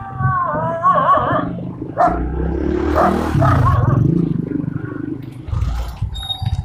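A dog howling in a drawn-out wavering call, then giving short barks, over a steady low rumble.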